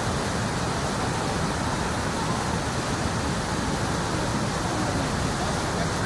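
Fast mountain stream rushing over rocks and small cascades: a steady, even rush of whitewater with no pause or change.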